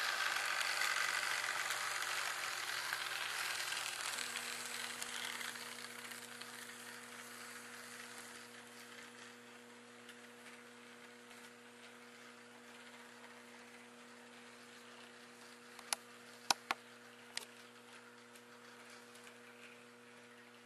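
HO-scale model freight cars rolling along the track, a rattling hiss that fades away over the first several seconds. After that a steady low hum remains, broken by a few sharp clicks about two-thirds of the way in.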